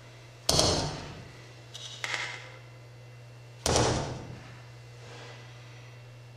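A hand slapping paper notes onto a flat surface: three loud thuds about a second and a half apart, each ringing out briefly, with a softer knock just before the second. A steady low hum runs underneath.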